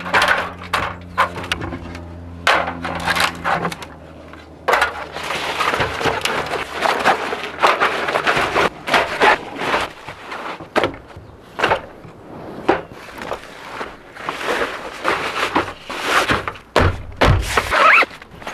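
Camping gear being packed by hand: a run of sharp metal clanks and knocks as the panels of a stainless steel folding fire pit are taken apart and folded together, and crinkling of a kraft-paper bag of kindling.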